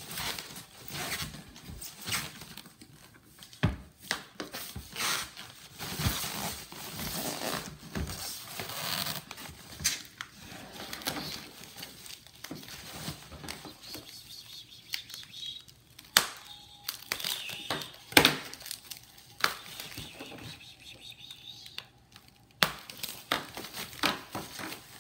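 Thin plastic bag crinkling and rustling as hands grip it and pull it up off a rice cooker, in irregular handfuls with a few sharper crackles.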